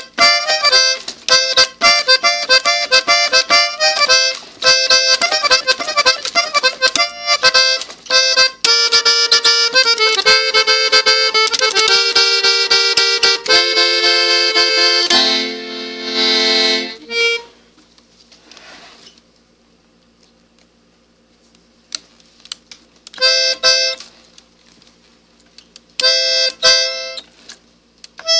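Three-row diatonic button accordion playing a quick run of melody notes on its treble buttons, ending in a held chord with a low bass note about 15 to 17 seconds in. After a pause of about five seconds, a few short notes come back near the end.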